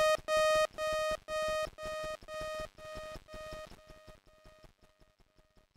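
A single bright synthesizer note from SunVox's Analog Generator, repeated by the Echo (delay) module about twice a second. Each repeat is quieter than the last until it fades away near the end.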